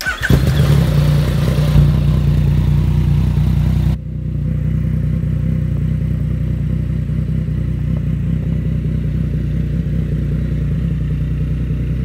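Yamaha XSR900's three-cylinder engine through a short aftermarket slip-on exhaust, starting up right at the beginning and running at a fast idle. About four seconds in the sound drops suddenly and then the engine idles steadily and a little more quietly.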